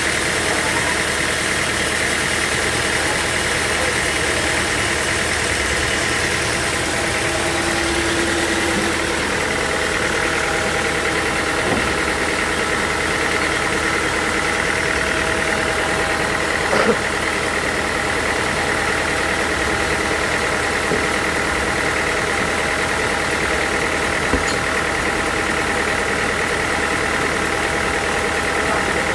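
Sawmill machinery running steadily: an even motor hum with a steady high whine, unchanging in level, with one brief knock about seventeen seconds in.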